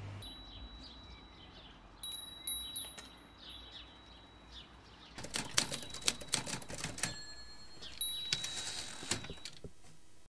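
Wind chime ringing: scattered strikes with long steady ringing tones at first, then a denser flurry of strikes from about five seconds in that dies away near the end.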